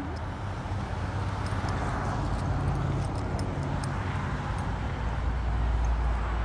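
Road traffic: a steady rush of car noise that swells into a low rumble near the end as a vehicle passes, with faint light clicks in the middle.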